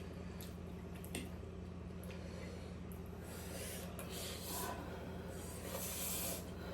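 Close-up eating sounds: chewing, mouth noises and breathing, with a few small clicks near the start, over a steady low hum.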